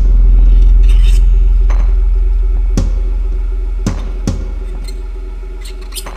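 Eerie soundtrack music: a deep bass drone slowly fading out, with sharp single percussive hits every second or so.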